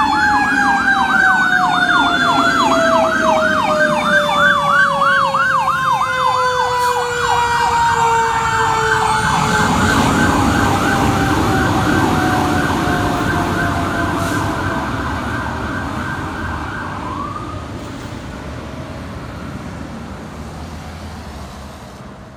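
Fire truck sirens from an aerial ladder truck approaching and passing: a fast yelping siren over a second siren tone that winds slowly down in pitch, with the truck's engine rumble loudest as it goes by about ten seconds in. The yelp stops about three-quarters of the way through and the sound fades as the truck drives off.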